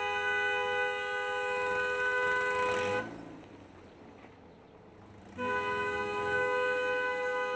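Car horn held in a long steady two-note blast, breaking off about three seconds in and sounding again about two and a half seconds later: celebratory honking from a car convoy.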